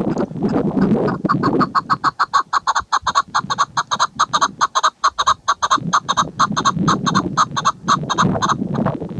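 Chukar partridge (chakor) calling a rapid, even run of clucking notes, about eight a second, for some seven seconds. A low rumbling noise is heard at the start and again near the end.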